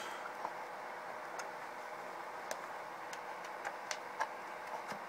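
Light, irregular clicks of plastic cable connectors being handled and pushed into a port of a four-port hobby battery charger, over a steady low hiss.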